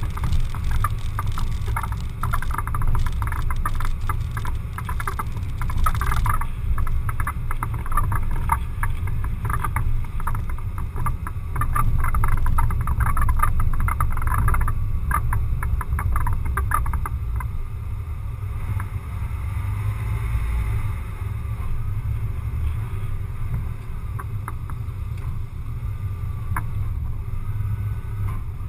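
Low rumble of wind and tyre-road noise picked up by a camera mounted on the outside of a moving car. For the first seventeen seconds or so, a dense, rapid clatter rides on it over a cracked, patched road surface. It then settles into a steadier rumble on smoother asphalt.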